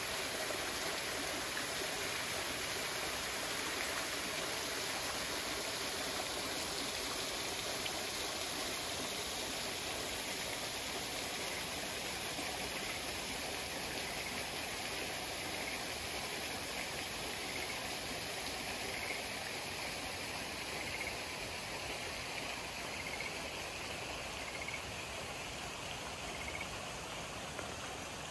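Small waterfall spilling down a rock face into a pool: a steady rush and splash of falling water, easing slightly near the end. Faint high chirps repeat about once a second in the second half.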